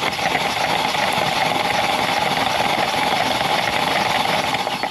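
Starter motor cranking a hydrolocked 1.6-litre four-cylinder Kia Rio engine with its spark plugs removed, turning over at an even, steady speed while water and air spray out of the open spark plug holes. The cranking stops near the end.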